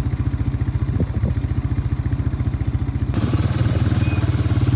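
A vehicle engine running at a steady speed with a rapid, even low putter. About three seconds in the sound changes abruptly, with more hiss added over it.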